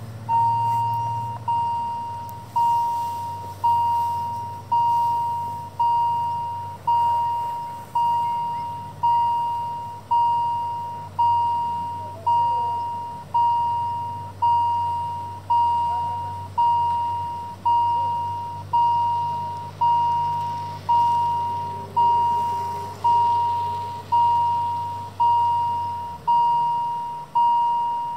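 Level-crossing warning bell striking steadily about once a second, each stroke a single bright ringing note that fades before the next. It is the crossing's alarm for an approaching train, sounding with the flashing red lights.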